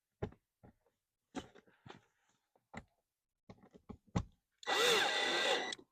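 A few light clicks and knocks of parts being handled, then, about four and a half seconds in, a power drill/driver runs for about a second with its motor whining at an uneven pitch. It is driving in a screw of the blower motor mounting, which is plastic, so it is not run hard.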